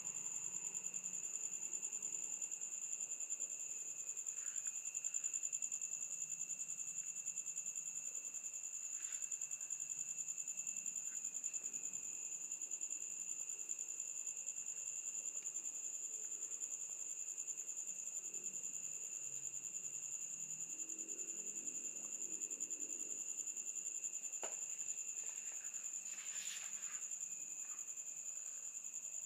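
Night insects chirring steadily: a continuous high-pitched trill with a fainter, lower one beneath it. A few faint clicks come near the end.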